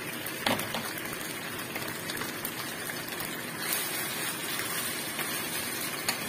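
Bok choy sizzling in a wok with a little oil and water, a steady hiss, while a wooden spatula stirs it with a few light knocks against the pan.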